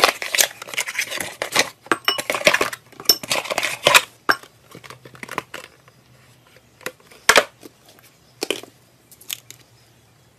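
Cardboard slime-kit box being opened and handled by hand: a dense run of tearing, crackling and rustling for about the first four seconds, then scattered taps and handling noises, with one sharper knock about seven seconds in.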